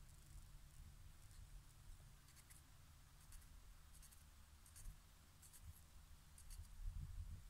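Faint crisp strokes of a large kitchen knife slicing salad ingredients held in the hand, a few cuts at a time with short pauses between. A low rumble swells near the end.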